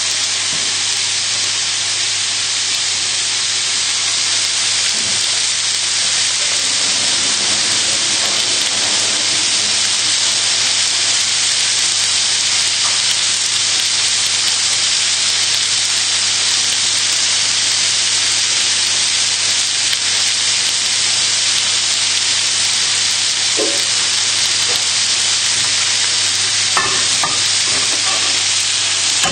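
Thin steaks sizzling steadily as they fry on their second side in a hot pan, over a steady low hum, with a couple of faint knocks near the end.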